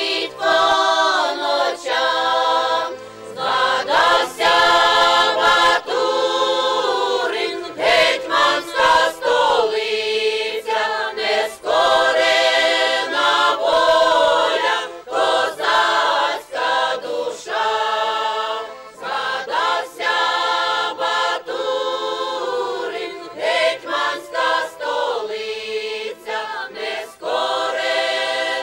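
Mixed folk choir of men and women singing a Ukrainian folk song in parts, unaccompanied, in long held phrases with short breaks between lines.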